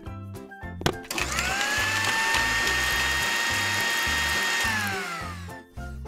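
Electric blender motor starting about a second in with a rising whine, running steadily while blending, then winding down near the end. Background music with a steady beat plays underneath.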